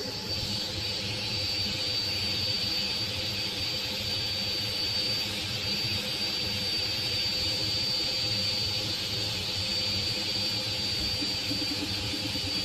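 3D printer running: a steady whir of cooling fans with a constant high-pitched whine over a low hum.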